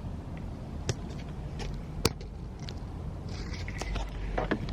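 Scattered clicks and knocks of a camera being handled and positioned inside a car, over a low steady rumble. There is one knock about a second in, another at two seconds, and a quicker cluster near the end.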